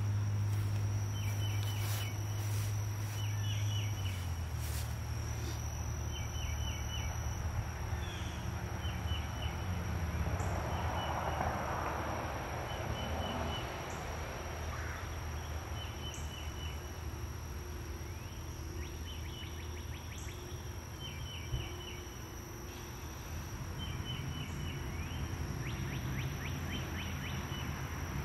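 Outdoor ambience: a steady low hum, with a bird giving short clusters of high chirps every couple of seconds and a constant thin high whine. There are a few light clicks in the first few seconds.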